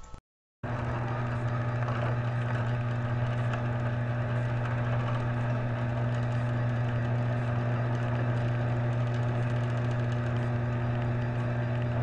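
Chain-drive garage door opener running on a test after its chain was re-seated on the drive gear. The motor hums steadily and the chain and trolley run along the rail as the door travels. The sound starts just after a brief silence and holds evenly throughout.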